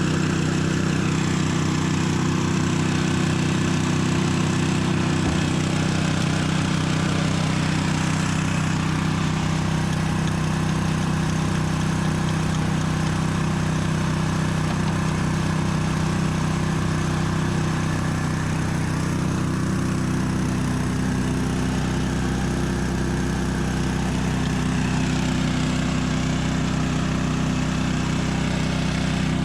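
A large farm machine's engine running steadily at a constant speed, most likely the combine harvester working in the corn.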